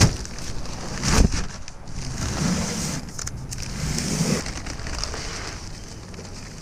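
A heavy paper sack of concrete mix being handled: a sharp knock at the start and a heavy thud about a second in, then softer bumps and rustling.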